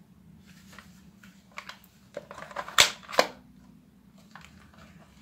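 Plastic toy foam-dart blaster being handled, a run of small clicks and rattles with two sharp, louder clicks close together in the middle.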